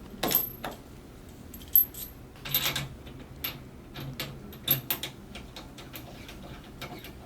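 Irregular metallic clicks and rattles as a high-pressure air hose's fittings are handled and connected to a ventilator's air compressor.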